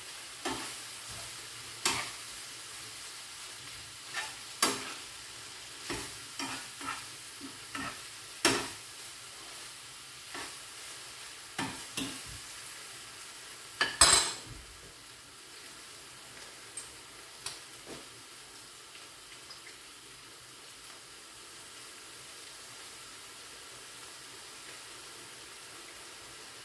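Eggplant and ground chicken frying in a pan with a steady sizzle, while a cooking utensil stirs and knocks against the pan in quick clicks, the loudest about fourteen seconds in. The stirring stops a little after that, leaving only the sizzle.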